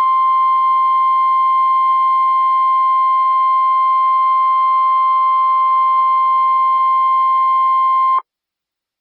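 NOAA Weather Radio's 1050 Hz attention tone: one steady, loud tone that cuts off suddenly about 8 seconds in. It is the alert that a severe thunderstorm warning is about to be broadcast.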